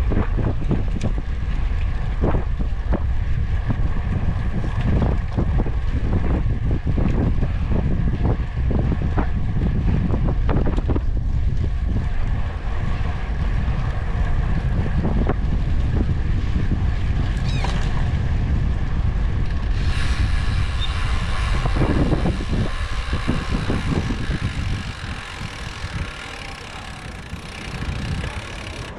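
Wind buffeting the microphone while riding: a heavy, steady rumble with scattered knocks and rattles. It drops off a few seconds before the end.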